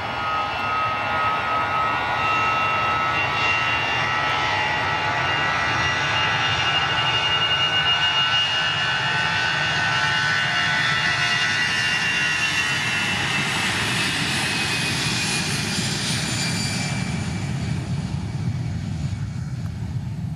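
AirAsia Airbus A320's twin jet engines at take-off power on the runway roll: a loud fan whine with several steady tones over a heavy rush, the tones sliding slightly lower after the middle as the jet passes. The hiss dies away near the end, leaving a low rumble.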